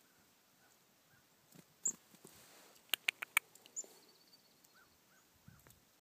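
Chickadees giving a few short, high, thin chirps, with soft little call notes near the end. About three seconds in comes a quick run of four sharp clicks, the loudest sounds here.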